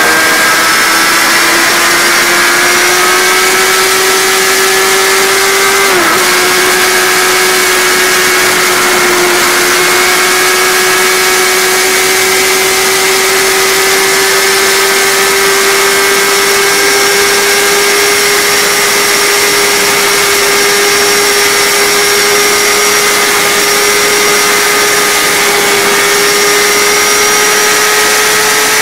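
Kawasaki sportbike's inline-four engine held at high revs at top speed, its pitch climbing slowly, with one brief drop about six seconds in. Heavy wind rush on the microphone runs under it throughout.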